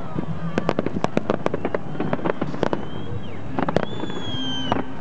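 Fireworks display: aerial shells bursting in a quick, uneven run of sharp bangs and crackles. A high whistle sounds for about a second near the end, falling slightly in pitch.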